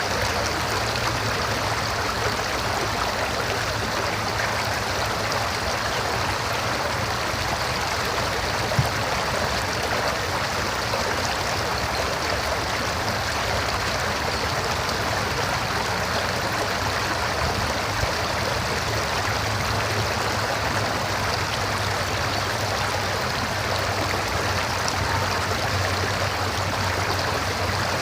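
River water rushing and babbling steadily over rocks, with a faint low hum underneath and one brief click about nine seconds in.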